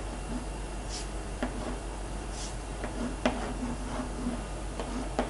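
Chalk drawing on a blackboard: a few sharp taps as the chalk meets the board, and a couple of short scratchy strokes, over a low steady hum.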